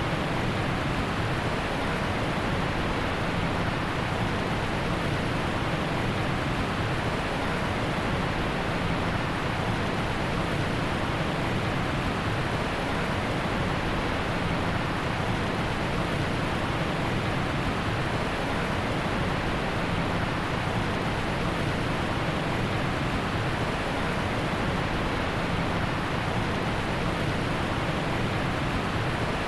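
Heavy rain falling steadily in a forest: a dense, even hiss with no thunder or other sudden sounds.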